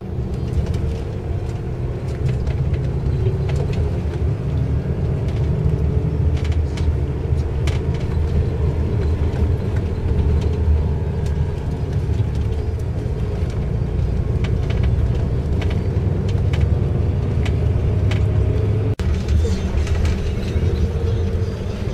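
Bus engine and road rumble heard inside the cabin on a mountain road, steady and low, with light rattles and clicks throughout.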